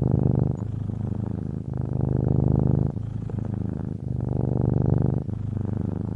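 Domestic cat purring steadily and close up, the purr alternating between a louder and a softer phase with each breath in and out, changing about every second and a bit.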